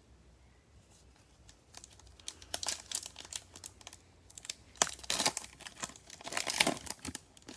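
A foil trading-card pack (2020 Panini Mosaic football) being crinkled and torn open by hand in nitrile gloves: crackling wrapper noise in three bunches of sharp crinkles, starting about two seconds in.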